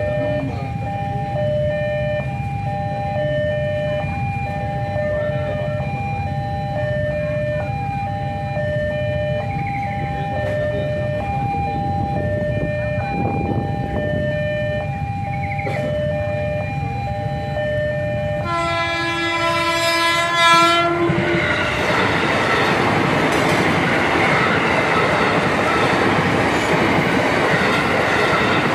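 A railroad crossing warning bell rings in two alternating tones, about one tone a second. About 19 seconds in, an electric commuter train (KRL) sounds its horn for about three seconds. The train then passes the crossing with the steady rumble and clatter of its wheels on the rails.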